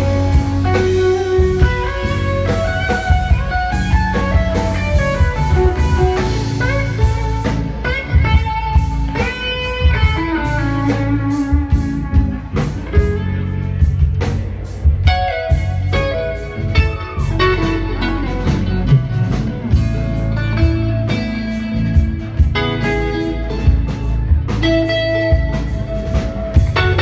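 Live blues band: a sunburst Stratocaster-style electric guitar plays a lead solo of quick single-note runs and string bends through an amplifier, over a steady bass line and drums.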